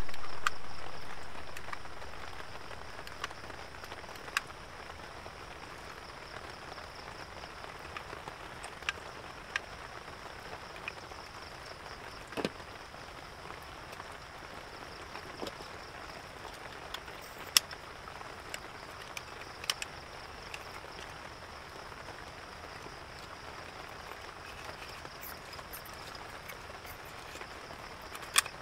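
Steady rain falling on the forest camp, with scattered sharp drips and taps. A louder sound dies away over the first two seconds.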